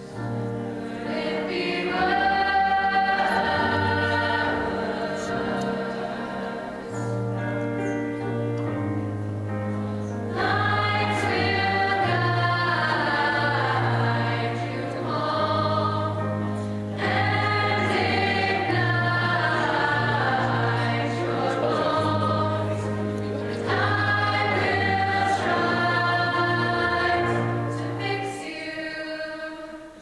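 Mixed-voice high school show choir singing, full chords held under moving melody lines, with a short dip in the singing near the end.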